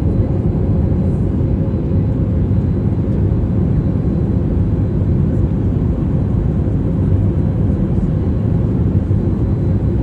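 Airliner cabin noise: a steady, even low rumble of jet engines and airflow, with a faint steady hum.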